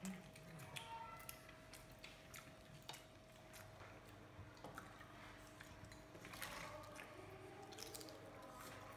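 Faint eating-by-hand sounds: fingers squishing and gathering rice and daal on a plate, with soft chewing and scattered small clicks.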